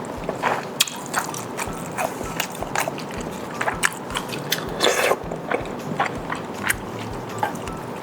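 Close-miked eating sounds: chewing and mouth smacks with frequent short, irregular clicks, and a longer noisy burst about five seconds in.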